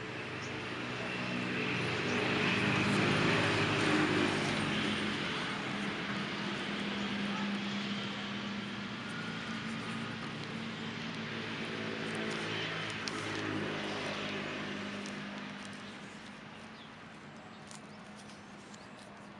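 An engine running steadily with a low hum, growing louder over the first few seconds and fading away over the last few.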